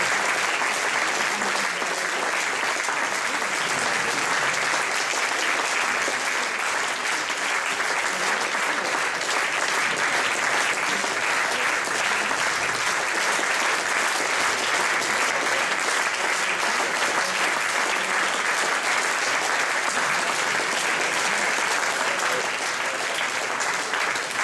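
Audience applauding: a long, steady spell of clapping from a concert hall full of people, starting to fade near the end.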